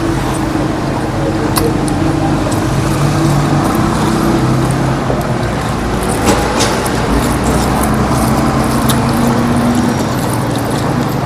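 Steady low hum of a running engine, its pitch shifting slightly, with a few sharp clicks on top.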